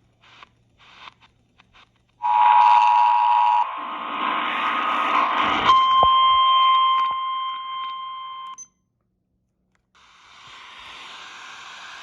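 Emergency Alert System attention signal received over static: the two-tone alarm sounds briefly about two seconds in, then static, then a single steady weather-radio alert tone for about three seconds that cuts off suddenly. After a moment of silence a steady hiss of static begins near the end.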